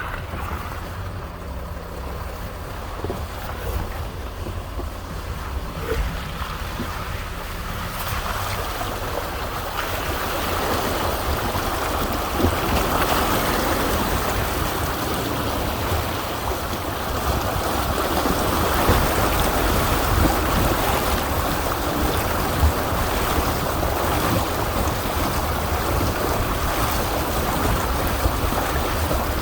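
A vehicle crossing a creek: a low engine rumble under the rush of moving water, which grows louder and fuller about eight to ten seconds in.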